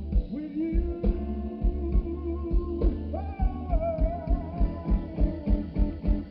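Live blues band playing: electric guitar lines over a steady kick-drum beat, about three beats a second.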